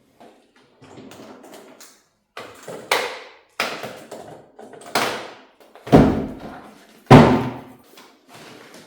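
A series of about half a dozen knocks and thuds of household objects being handled, each dying away quickly, the two loudest about six and seven seconds in.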